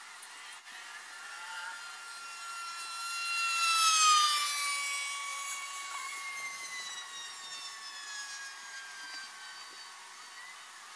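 A passing engine: a droning tone with overtones swells to its loudest about four seconds in, its pitch sliding down as it goes by, then fades away.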